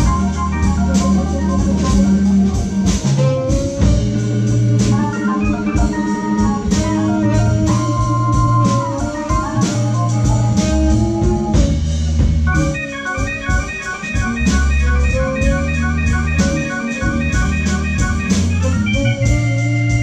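Blues band playing live: a Hammond organ takes the lead over guitar and drums, with a long run of fast repeated high notes through the second half.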